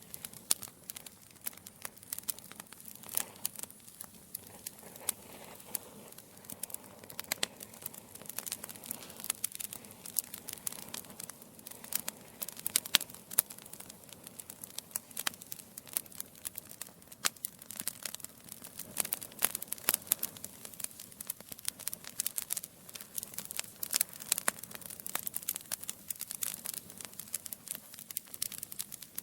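Wood fire burning in a fireplace: logs crackling and popping in quick irregular snaps over a faint steady hiss.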